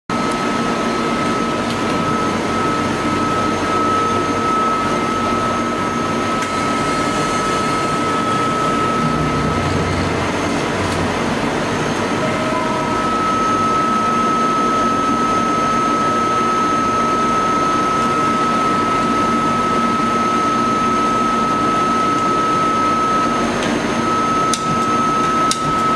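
EMCO Turn 420 MC Plus CNC lathe running: a steady mechanical hum with a constant high whine, a few low thuds about ten seconds in, and sharp clicks near the end.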